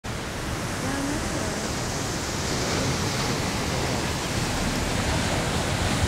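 Steady rushing noise of Wailua Falls, water plunging into its pool, heard as an even hiss.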